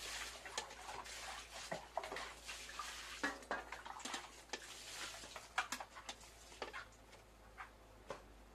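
Metal ladle stirring boiling chicken soup in a pot, with irregular clinks and scrapes against the pot's sides over a splashing hiss of the broth that thins after about six seconds.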